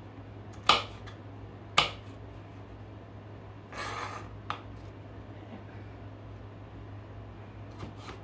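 Kitchen knife chopping a bell pepper on a plastic cutting board: two sharp knocks about a second apart, then a brief scraping sound near the middle and a faint tap or two, over a steady low hum.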